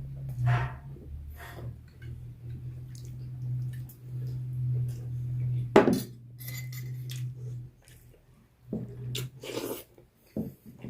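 Cutlery and dishes clinking and knocking during a meal, a handful of separate strikes with the sharpest about halfway through, over a steady low hum.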